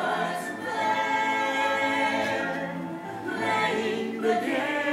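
Several voices singing together in long held notes, the phrase shifting to new notes about three seconds in.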